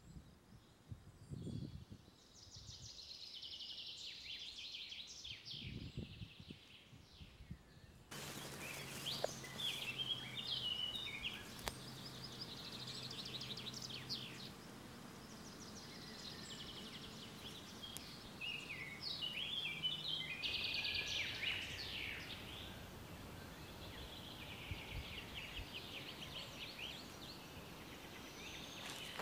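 Outdoor summer ambience of small birds chirping and singing, with short calls and fast trills throughout. About eight seconds in the background noise steps up and stays louder, and a faint low hum runs underneath for a while.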